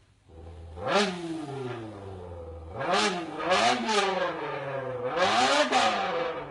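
A man imitating a drag-racing car's engine with his voice through an empty can. A low idle hum gives way to sharp revs: about a second in the pitch shoots up and falls away, then rises and falls three more times, like a car revving through its gears.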